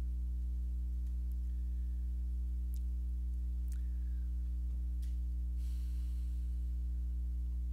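Steady low electrical hum with a row of overtones, running unchanged, with a few faint clicks and a soft rustle about six seconds in.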